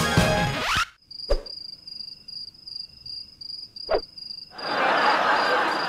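Music ends on a rising swoop, then crickets chirp, a steady high chirp repeating about four times a second. Two sharp knocks sound during the chirping, and a broad rushing noise joins near the end.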